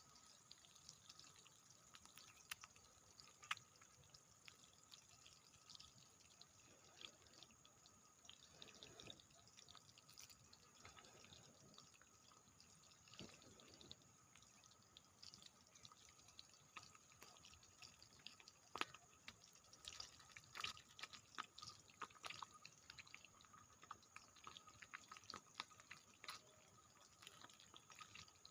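Near silence, broken by faint scattered small clicks and ticks at irregular intervals, a little busier in the second half.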